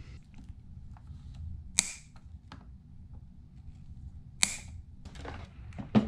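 Diagonal cutters snipping off the tails of two plastic wire ties: two sharp snaps about two and a half seconds apart, with faint handling clicks between.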